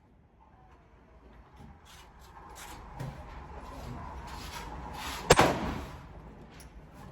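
A single gunshot about five seconds in, a sharp crack with a short echoing tail, over low background rumble; a fainter knock about three seconds in.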